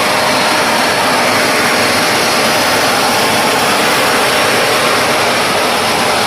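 Kärcher WD 5 Premium wet-and-dry vacuum cleaner running steadily in dry mode: a loud, even rush of air with a faint steady whine underneath.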